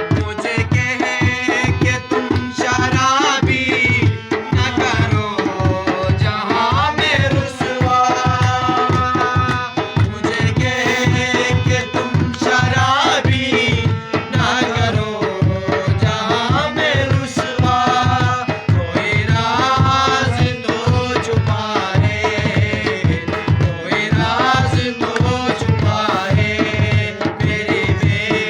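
Instrumental interlude of a ghazal: tabla keeping a steady, busy rhythm under a gliding melody line.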